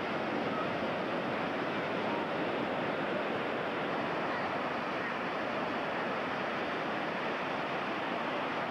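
Ocean surf washing steadily, with no single wave crash standing out, heard through an old camcorder microphone that makes it sound dull and narrow.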